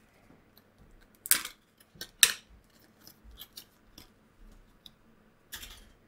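Plastic blister packaging of a laptop memory module being handled and opened: a few sharp plastic clicks and crackles, the loudest about a second in, twice around two seconds, and once near the end, with light ticking between.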